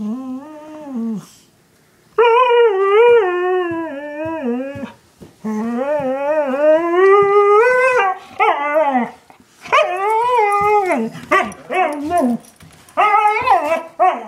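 Young Siberian husky making a series of drawn-out, howl-like vocal calls while play-wrestling with another dog, about seven calls, each wavering up and down in pitch, with short breaks between them.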